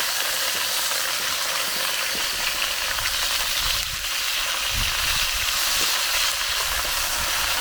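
Chicken pieces sizzling steadily in hot bacon grease and rendered skin fat in a cast iron skillet while being browned and turned over.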